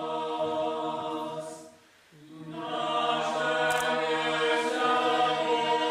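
Background choral music: a choir singing slow, held notes. It fades away to silence about two seconds in, then comes back and swells.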